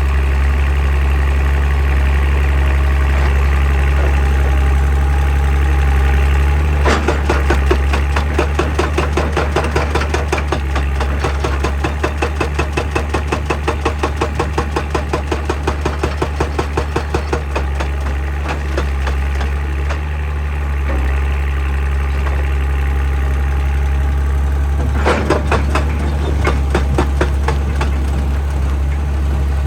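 Excavator diesel engine running steadily, with a hydraulic rock breaker hammering on rock in a fast, even run of blows for about ten seconds, then again briefly near the end.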